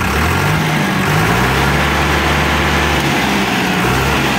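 Diesel engine of a new Digitrac PP51i 60 HP tractor running. It rises in pitch over about the first second as the throttle is opened, holds at the higher speed, then dips briefly around three seconds in and picks up again near the end.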